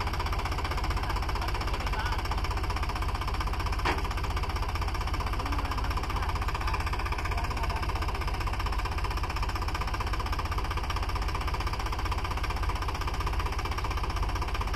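Swaraj 744 FE tractor's three-cylinder diesel engine running steadily with a fast, even chug while its hydraulics tip up a trolley loaded with soil. A single sharp click sounds about four seconds in.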